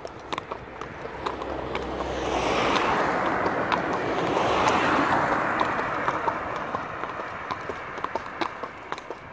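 Horses walking on a hard surface, their hooves clip-clopping in an even beat. Through the middle a rush of noise swells up and fades away over several seconds, louder than the hoofbeats.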